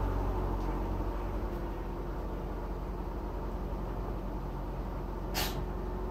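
1995 Ford Escort wagon's 1.9-litre four-cylinder idling steadily through a newly fitted exhaust system. A brief burst of hiss comes near the end.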